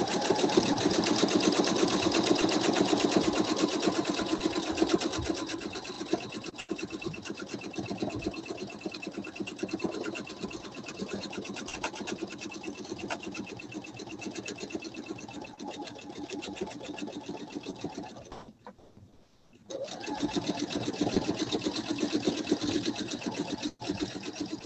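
Pfaff sewing machine free-motion quilting through a padded quilt: a rapid, even chatter of needle strokes, louder for the first few seconds. It stops for about a second some eighteen seconds in, then starts again.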